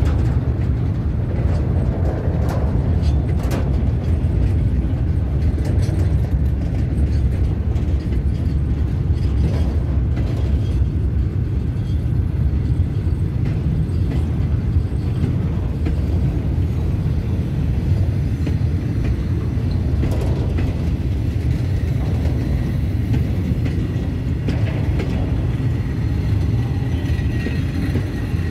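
Bogie covered freight wagons rolling past on the rails: a steady deep rumble from the wheels on the track, with occasional sharp clanks and clicks.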